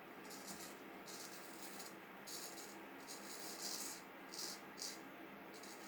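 Vintage Norton straight razor scraping through a week's stubble in short, faint strokes, about seven in all, each a brief crackly rasp.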